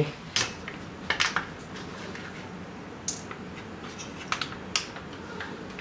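A handful of sharp, light clicks and taps, about six, spread irregularly over a few seconds, as of small objects being handled and set down while packing.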